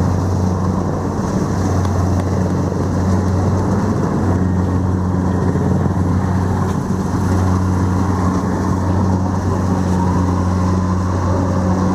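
Kubota DC-70 Plus combine harvester's diesel engine running steadily, a continuous low drone with a strong hum.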